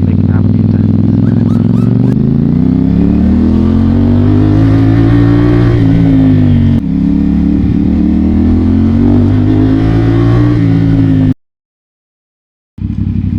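CF Moto 450SR-S parallel-twin motorcycle with an aftermarket exhaust accelerating: engine revs climb for several seconds, drop at an upshift about seven seconds in, then climb again. The sound cuts out completely for about a second and a half near the end.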